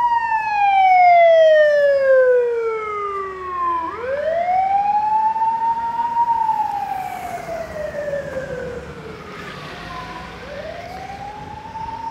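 Ambulance siren wailing in slow cycles: each wail climbs quickly to a high pitch, then falls slowly over several seconds, about three times. It grows fainter after the first few seconds.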